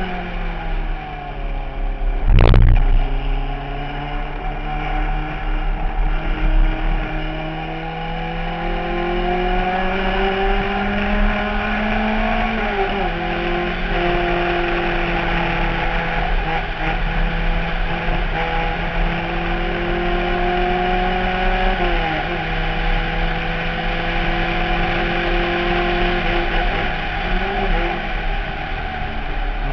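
Onboard sound of a Fiat 124 race car's twin-cam four-cylinder engine at racing speed. The revs fall over the first seconds, then climb through the gears, dropping sharply at an upshift about halfway through and again about three-quarters through. The engine runs over a rush of wind noise, and a single sharp thump comes about two and a half seconds in, the loudest moment.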